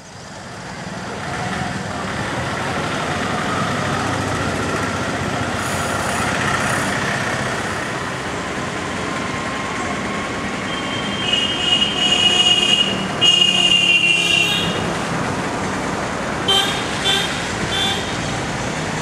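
Street traffic noise with vehicle horns honking: two long horn blasts about eleven and thirteen seconds in, then a few short toots near the end.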